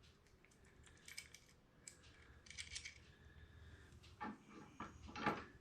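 Small metal mounting hardware clinking and clicking as it is handled: light, scattered taps, with a few sharper knocks about four and five seconds in.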